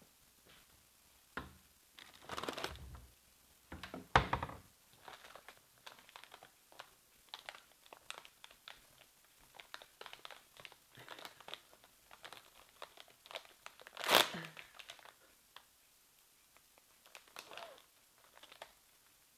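Plastic wrapper of an Oreo cookie package crinkling as it is handled and peeled open, with one loud rip about two-thirds of the way through. A few knocks and rustles come first, one of them loud, as the package is fetched from a cupboard.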